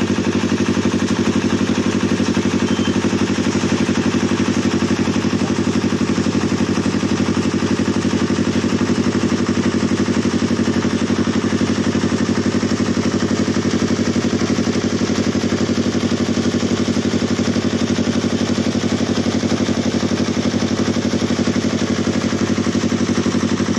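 Concrete mixer's engine running steadily at a constant speed, with a fast, even pulse and a little clatter.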